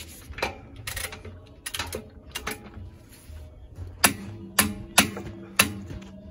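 Sharp metallic clicks with a short ring from a large torque wrench and socket working the wheel lug nuts on a heavy truck. A few lighter clicks come first, then, about two-thirds of the way in, a run of louder clicks about half a second apart.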